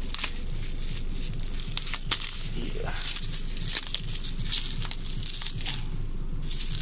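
Plastic bubble wrap crinkling and crackling as hands handle it and pull it open, with irregular sharp crackles throughout.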